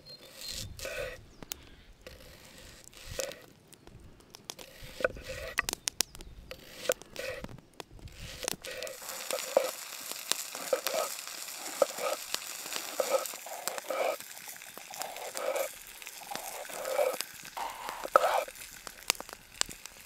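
Crackling, crunching handling sounds of campfire cooking: sharp clicks and crinkles, with an even hiss setting in about nine seconds in and running on under repeated short knocks.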